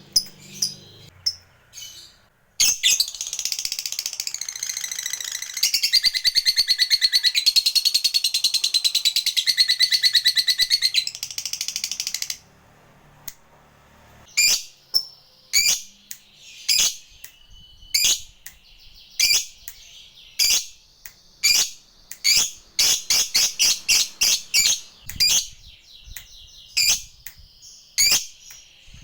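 Lovebird giving a long ngekek: a loud, rapid chattering trill held for about ten seconds, which then cuts off. After a short pause come sharp single chirps about one a second, some in quick runs.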